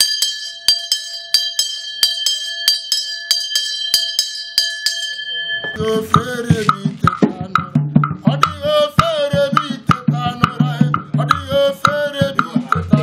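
A metal bell rings on steadily, struck in a quick, regular beat. About six seconds in it stops and singing with drums and percussion begins.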